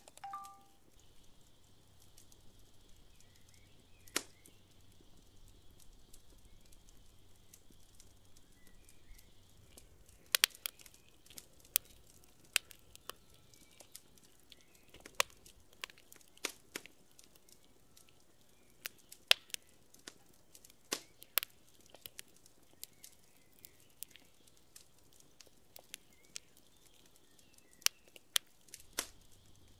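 Wood and charcoal fire crackling under a pot: irregular sharp pops, few at first and coming often from about ten seconds in.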